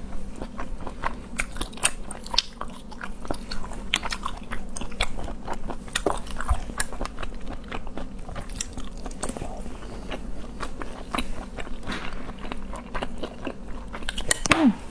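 Close-miked eating of seafood: biting and chewing with many irregular, sharp crackling clicks. A short falling hum comes near the end.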